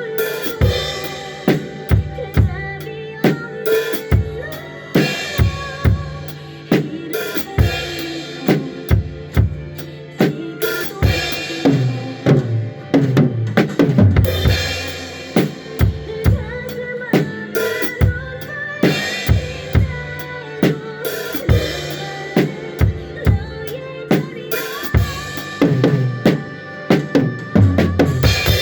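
Drum kit played along to a recorded song: kick drum and snare hits with cymbals, keeping a steady beat over the track's sustained pitched accompaniment.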